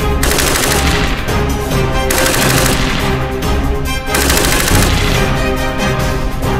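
Music laid over several bursts of rapid rifle fire from an AR-RPK, an AR-15-based light-machine-gun-style rifle fired from its bipod.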